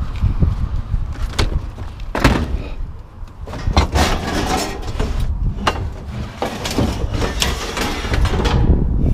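Scrap metal being handled and shifted: a string of knocks, clanks and scraping, busiest and most rattly in the second half.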